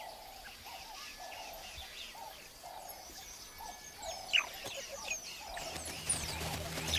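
Wild birds calling in the bush: a short low call repeated about twice a second, with scattered higher chirps over it.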